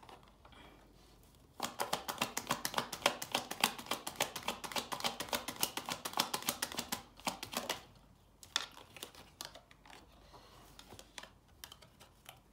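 A deck of oracle cards being shuffled by hand: a fast run of papery clicks for about six seconds. After that come a few single clicks as cards are handled.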